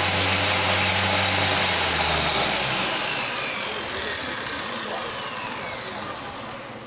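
Electric circular saw running at full speed, then switched off about two and a half seconds in, its whine slowly falling as the blade spins down.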